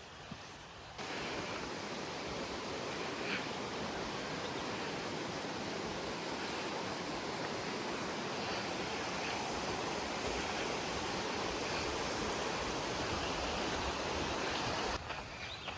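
Steady rushing of falling water from a waterfall, starting suddenly about a second in and cutting off suddenly near the end.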